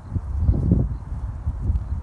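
Wind blowing in gusts, a low rumble that swells and drops unevenly, with a faint, regular high chirping behind it.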